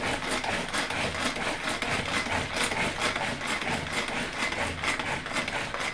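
Tupperware Extra Chef hand-cranked mixer being turned steadily, a continuous rapid rasping and clicking of its mechanism as the whisks beat melted chocolate and butter.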